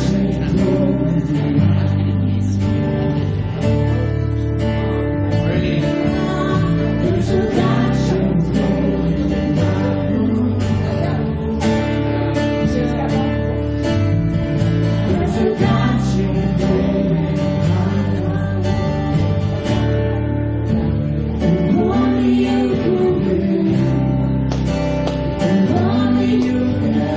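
Live church worship band playing a gospel song on guitars, keyboard and drums, with singing.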